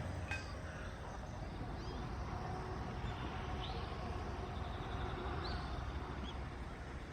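Outdoor ambience: a steady low rumble with a few scattered faint bird calls, and a single light click near the start.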